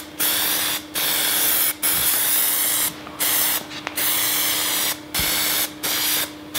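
Aerosol can of Plasti Dip rubberized coating spraying in short hissing bursts, about eight in a row with brief pauses, laying on a thick final coat.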